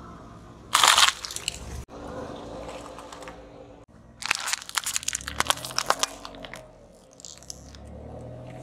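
A car tyre crushing plastic packaging: one loud crunch about a second in as clear plastic cupcake clamshells collapse, then, a few seconds later, a run of sharp crackles and pops as a row of plastic candy blister packs is flattened.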